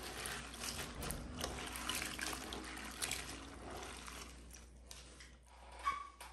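Hand swishing and rubbing dried hibiscus flowers in a glass bowl of water: quiet, uneven wet sloshing and rustling, with a brief louder sound near the end.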